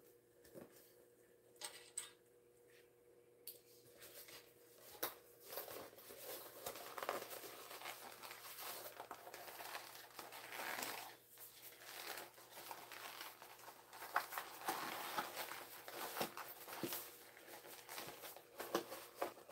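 Vinyl and fabric of a small tote bag rustling and crinkling as it is turned right side out by hand. A few light clicks at first, then steady crinkling from about three seconds in.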